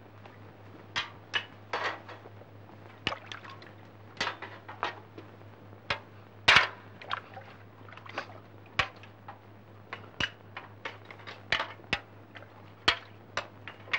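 Spoons and a serving ladle clinking against metal bowls and a bucket as food is ladled out and eaten: irregular sharp clinks, with a little sloshing of liquid. A steady low hum runs underneath.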